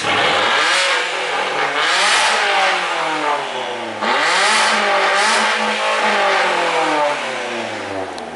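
Vauxhall Corsa's petrol engine revved twice through an exhaust with the centre silencer removed. Each rev climbs quickly and falls away slowly, the second starting about four seconds in.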